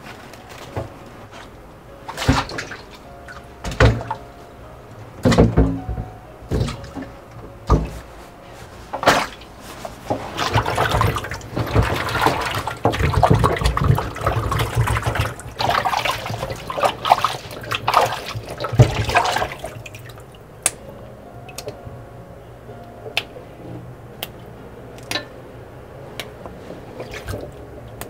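Vegetables being washed by hand in a stainless steel bowl in a kitchen sink: a few knocks against the bowl, then tap water splashing over the vegetables for several seconds, then small drips and taps as the water stops.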